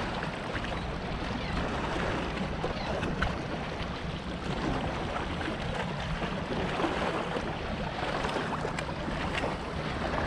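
Steady wind and water noise, with a few faint ticks.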